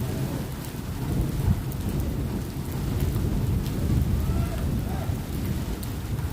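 Thunder rumbling steadily through a rainstorm, with rain falling and scattered raindrop ticks.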